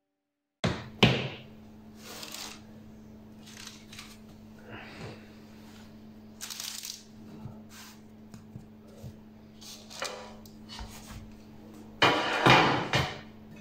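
Hands moving parchment paper, a cloth and a metal baking tray on a wooden board: rustling and crinkling with a few sharp knocks, and the loudest clatter near the end. A steady low hum runs underneath.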